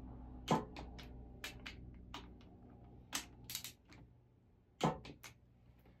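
Ratchet wrench clicking in short, irregular strokes, about a dozen clicks, as the camshaft retainer plate bolts on a Triumph Spitfire engine are tightened.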